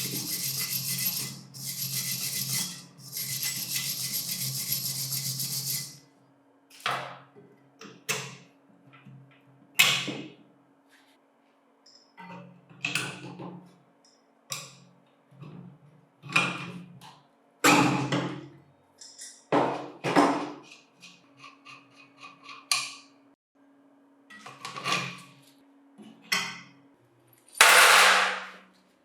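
A power tool runs in three bursts over the first six seconds. It is followed by a series of separate metal clanks and scrapes from work on the parts, and a longer noisy burst near the end.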